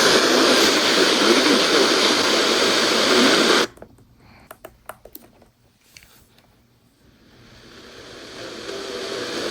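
Radio static: loud, even hiss from a receiver tuned to weather radio. It cuts out abruptly a little over a third of the way through, leaving near quiet with a few sharp clicks, and then the hiss slowly swells back in.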